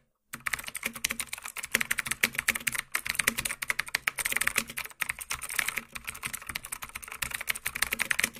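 Keyboard typing sound effect: a fast, dense run of key clicks, pausing briefly twice and stopping abruptly at the end.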